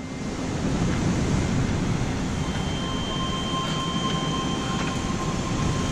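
Small SUV driving slowly over a gravel dirt road toward the listener, heard as a steady rushing noise. A faint steady high tone joins about two and a half seconds in.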